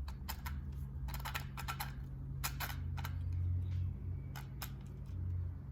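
Irregular light clicks and ticks, some in quick clusters, over a steady low hum that swells briefly a few times, from the Arrma Typhon's pinion and spur gear being tested after a motor swap. The owner thinks the gear mesh looks too tight.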